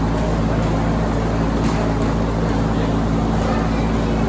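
A steady low machine hum fills the room, with a few sharp smacks of gloved punches landing on focus mitts scattered through it.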